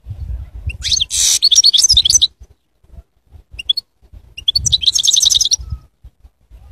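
European goldfinch singing: two fast phrases of high, rapid twittering notes with a brief pair of notes between them. A low rumble runs underneath.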